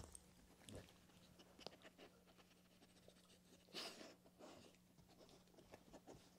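Near silence with a faint steady hum, scattered soft clicks and rustles, and a brief louder snuffle about four seconds in: a dog sniffing and licking at a hand held low to the floor.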